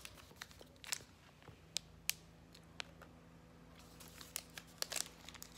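Plastic snack wrapper of a tahini halva being handled and opened: scattered faint crinkles and clicks, busier near the end.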